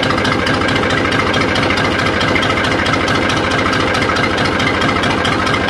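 New Holland tractor's diesel engine idling steadily with a fast, even beat, running again after it had refused to start.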